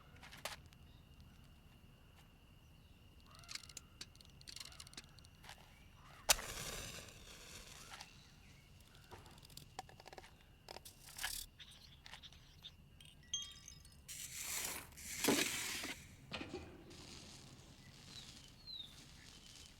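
Animated-film sound effects with no dialogue or music: scattered light clicks and taps over a faint steady high tone, a sharp hit about six seconds in, and a longer rush of noise around fifteen seconds.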